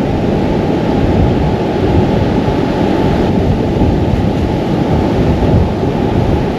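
Ocean surf breaking on the shore, with wind buffeting the microphone: a steady, loud rushing noise with no breaks, heaviest in the low end.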